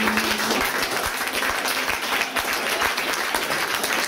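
Audience applauding, a dense, steady clapping. A held final note ends about half a second in, as the clapping takes over.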